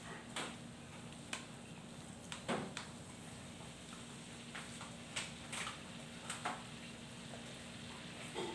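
Red spicy sauce paste frying in hot oil in a wok: a soft steady sizzle broken by irregular crackles and pops as the oil spits.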